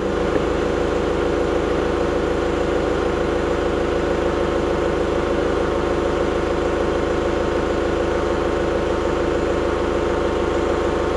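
John Deere 120 excavator's diesel engine idling steadily.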